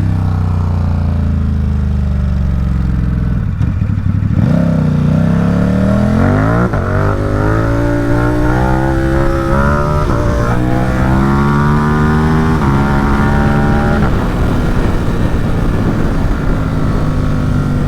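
Ducati Supersport 950 S's L-twin engine running through a Competition Werkes aftermarket exhaust under riding load. It holds a steady pitch at first, then the revs climb in three pulls, each cut off by an upshift, before settling to a steady cruise for the last few seconds.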